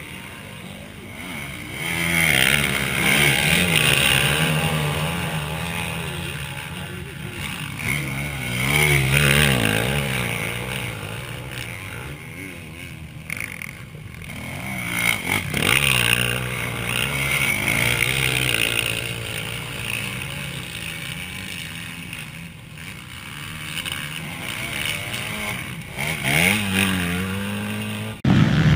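Motocross dirt bike engines revving as riders come through a dirt corner one after another. The engine note rises and falls with each throttle change and swells as each bike passes, several times over.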